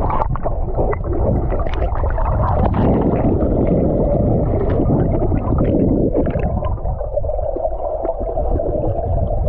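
Muffled gurgling and rumbling of river water heard through a GoPro held underwater, with many small bubbly crackles and pops throughout.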